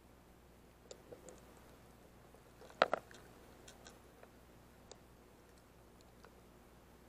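Sparse, sharp clicks and crackles picked up by a camera held underwater among rocks, over a faint steady hum. A quick cluster of louder clicks comes about three seconds in, with single faint clicks before and after.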